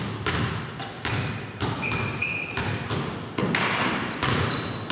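Basketballs bouncing on a hardwood gym floor, irregular thuds echoing in a large hall, with short sneaker squeaks on the court twice.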